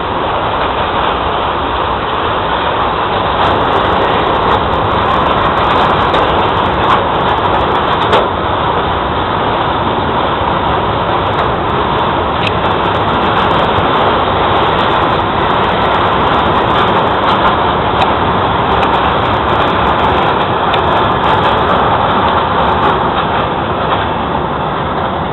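Freight train of tank wagons rolling through a rail yard: a steady rumble of wheels on the rails with scattered sharp clicks and clanks.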